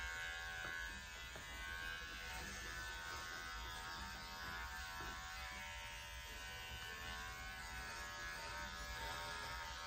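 Electric pet clipper running with a steady buzz as it is worked through a Scottish terrier's coat around the neck.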